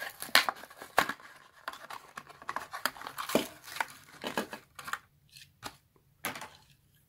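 Clear plastic blister bubble being peeled and torn away from the cardboard backing card of a Matchbox toy-car package, a run of crackles and snaps. The sounds thin out to a few separate clicks and taps over the last two seconds.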